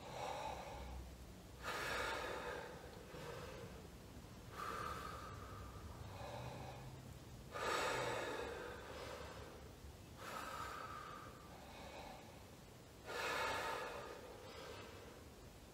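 Slow, deep breaths through the mouth, drawn in and let out about three times in turn, each a soft rush of air: full breaths of the kind practised for trumpet playing.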